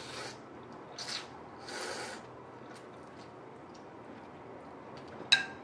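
Noodles being slurped from a bowl of chicken noodle soup: three short hissing slurps in the first two seconds. Near the end comes a single sharp click with a short ring.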